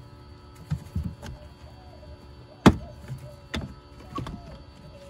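Plastic retaining clips on a Tesla Model 3's frunk air-intake plenum being popped off by hand: several sharp plastic clicks and snaps, the loudest a little past halfway.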